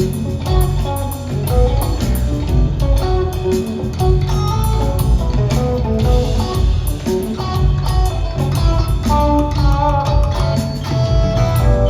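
Live electric rock trio playing an instrumental jam: electric guitar lines over bass and drum kit, recorded on a phone from the audience.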